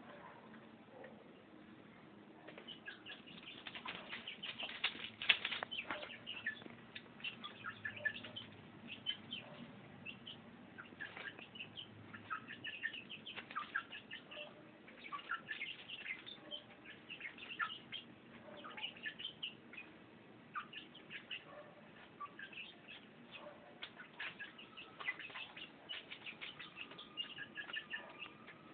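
Domestic chickens and their chicks: a steady stream of short, high peeps and chirps, many a second, busiest from about three seconds in.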